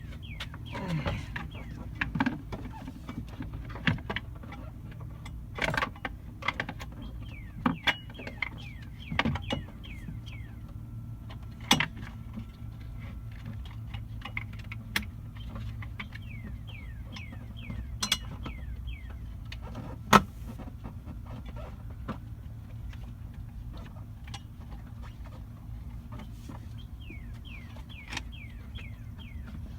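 Scattered metallic clicks, clinks and knocks of the hooked tool working the spare tire winch under a Dodge Caravan, over a steady low hum.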